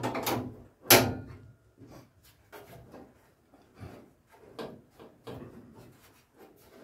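Sheet-metal handling noises as a steel bubble arch panel, held by a locking-plier clamp at its lower edge, is pushed and flexed into line against the rear quarter by hand. A clatter at the start and one loud clack about a second in, then a run of lighter knocks and taps.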